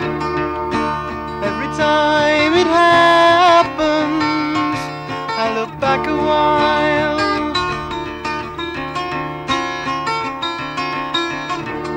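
Music: an instrumental passage of a folk-rock song, with picked acoustic guitar. About two to three and a half seconds in, a sustained lead line bends and wavers in pitch.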